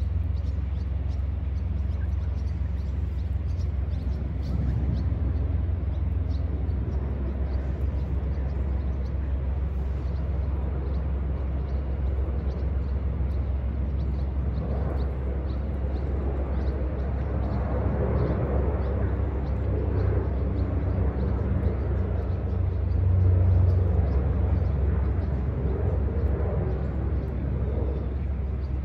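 Outdoor background rumble, steady and low, with a wider wash of noise that swells around the middle and peaks about three-quarters of the way through.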